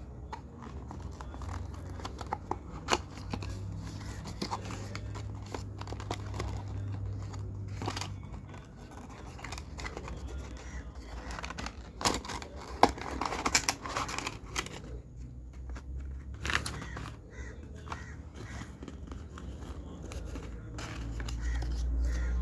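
Small plastic clicks and snaps from a fidget cube being worked by hand: its buttons, switch and other controls pressed and flicked, irregularly, with a dense run of clicks about halfway through.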